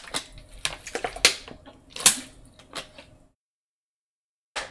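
Irregular sharp clicks and taps from a small hard object being handled close to the microphone, broken by a second of dead silence near the end.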